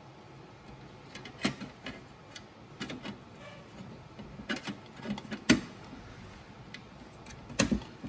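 Irregular clicks and knocks of a metal support bracket being handled and fitted against a GPU card on its riser. The sharpest knock comes about five and a half seconds in, with another cluster near the end.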